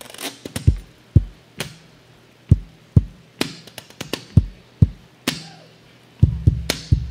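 A sparse, uneven solo of sharp percussive taps and knocks, each stroke a thud with a bright click, with silence between the strokes. Low sustained notes, fitting the upright bass on stage, come in under the taps about six seconds in.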